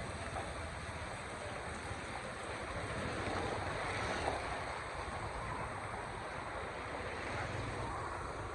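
Steady wash of rain and road traffic on wet city streets, an even hiss over a low rumble.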